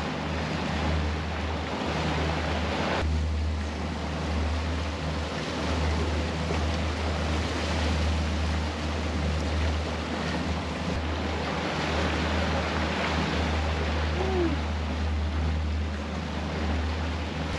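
Twin outboard motors running steadily with a low hum, under the rush of the boat's churning wake and wind on the microphone.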